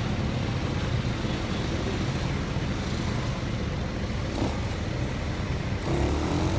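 Road traffic noise: vehicle engines and tyres in a steady rumble, with one engine's note rising slightly near the end.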